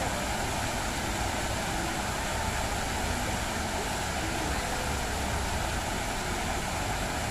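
Many water jets of a large fountain falling back into its pool: a steady, unbroken rushing splash.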